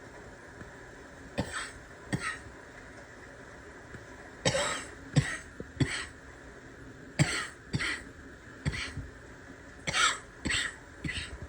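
A person with a barking cough coughing repeatedly, about a dozen short, harsh coughs in clusters of two or three with brief pauses between.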